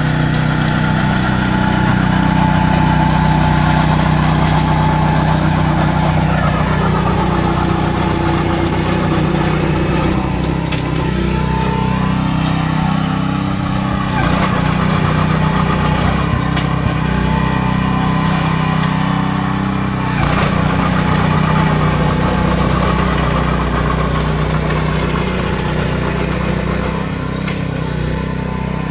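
Small petrol engine of a walk-behind hollow-tine core aerator running steadily as the machine punches plugs out of the lawn, its pitch wavering a little, with a few sharp knocks.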